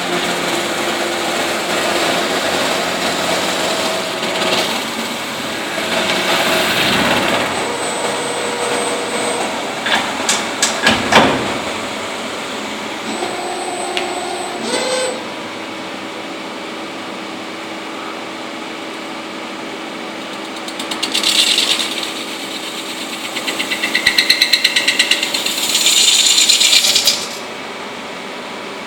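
CNC metal-spinning machine running, with a steady hum and whine. About ten seconds in comes a quick run of sharp knocks, and near the end loud rattling buzzes.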